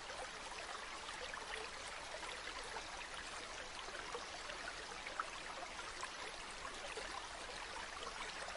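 Faint, steady hiss of natural ambience with scattered small crackles, close to the sound of a running stream.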